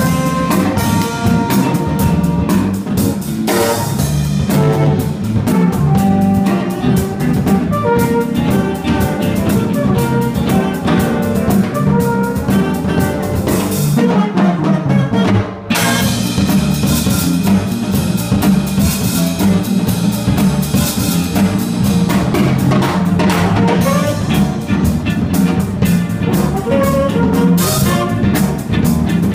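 Live jazz-funk band playing: flugelhorn out front over electric guitar, bass guitar, drum kit and keyboard, with a saxophone. About halfway through the band breaks off for a moment, then comes back in together.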